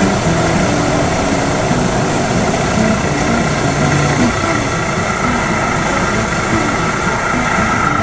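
Light aircraft's piston engine and propeller running steadily, heard from inside the cockpit over a constant rush of air noise.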